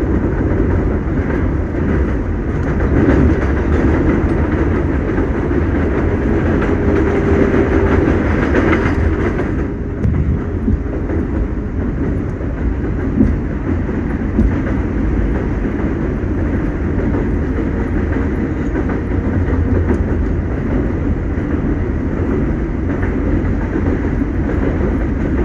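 R188 subway train running along the track: a steady rumble of wheels on rails, with a faint steady whine in the first part and two sharp clacks a little past halfway.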